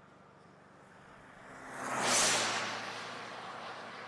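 A vehicle passing close by, its tyre and engine noise rising to a peak about two seconds in and then fading away.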